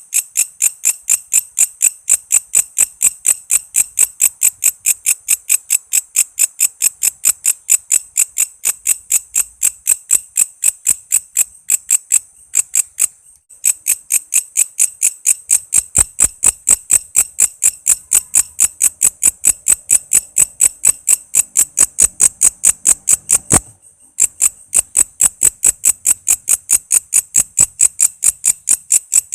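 Walang kece, a singing insect, calling in a fast, even train of high-pitched chirps, about four to five a second. The train breaks off for about a second near the middle and again briefly about two-thirds of the way in.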